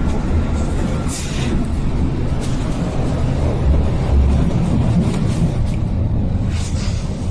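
Berlin U-Bahn class F train with three-phase AC traction motors running along the track: a steady low rumble, with two short hissing bursts, about a second in and near the end.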